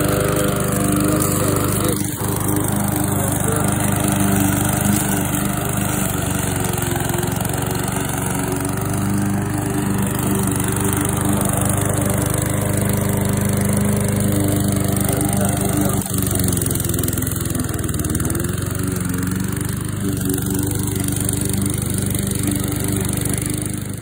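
PowerSmart 144cc four-stroke single-cylinder mower engine running steadily under load as the walk-behind mower is pushed across the lawn. The engine sound dips briefly twice, about 2 and 16 seconds in.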